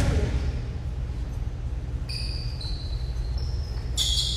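Basketball game on a hardwood gym floor: a sharp ball-bounce impact at the start, then short high-pitched sneaker squeaks about two seconds in and again, louder, near the end, over a steady low hum of the hall.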